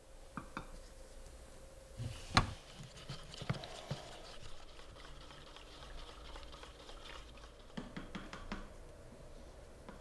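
Light clicks, taps and scrapes of small parts and tools being handled, with one sharp knock about two and a half seconds in and another cluster of taps near the end.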